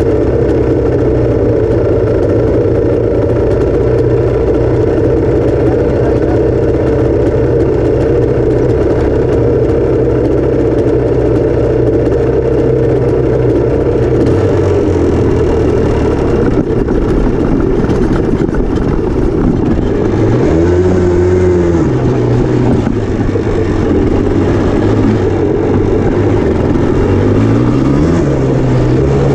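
Yamaha Blaster's single-cylinder two-stroke engine running steadily at idle for about the first half, then pulling away, its pitch rising and falling in two revs in the second half.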